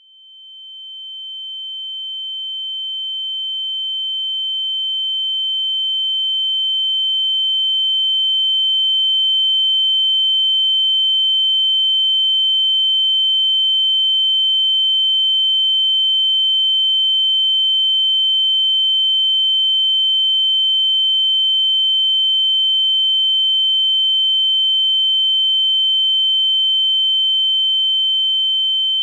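A steady, high-pitched pure electronic tone, a film sound-design ringing that swells in over the first several seconds and then holds at one pitch, with a fainter lower tone under it.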